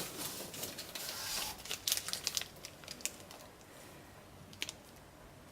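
Plastic packaging crinkling and rustling as it is handled, with scattered light clicks and taps, busiest in the first three seconds and with one sharper click late on.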